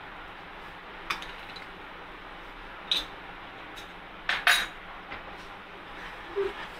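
Metal utensils clinking against a steel saucepan as sugar is tipped in and the thickened milk is stirred: a handful of short sharp clinks a second or two apart, two of them close together past the middle.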